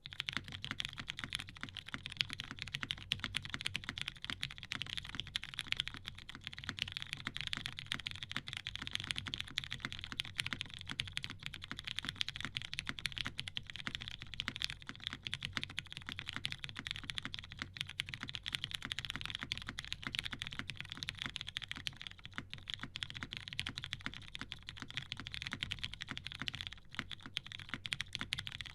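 Continuous typing on a TGR Jane V2 CE mechanical keyboard with an aluminium plate, vintage Cherry MX Brown switches lubed with Krytox 205g0, and GMK keycaps: a dense stream of key clacks with a brief pause near the end.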